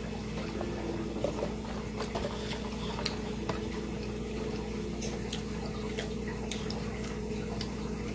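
Quiet eating sounds: a drink sipped through a straw, then chewing on a grilled cheese sandwich, with scattered small clicks and smacks over a steady low hum.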